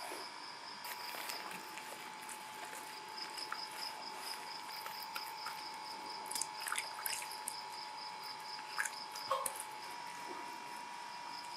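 Wet clay paste squelching and smacking as gloved hands scoop and work it, in a few short wet smacks about six to seven seconds in and again near nine seconds. Under it, insects chirp steadily with a high trill pulsing about five times a second.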